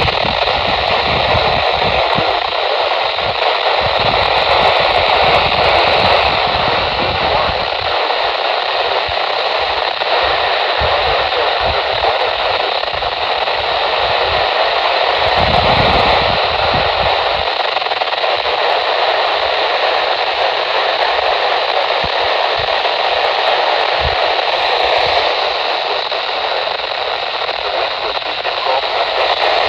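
NOAA Weather Radio broadcast on a weak signal: a steady hiss of radio static, with a voice faint beneath it.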